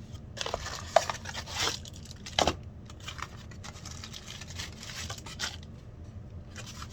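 Packing tape and plastic packaging being pulled off and crinkled: a run of irregular tearing and rustling, with sharp snaps about one and two and a half seconds in.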